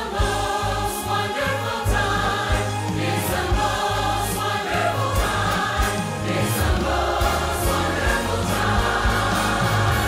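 Mixed choir singing a Christmas song in full harmony, with orchestral accompaniment and a steady bass underneath.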